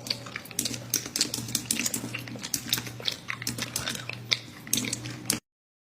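Rapid, irregular clicking and tapping over a steady low hum, cutting off suddenly near the end.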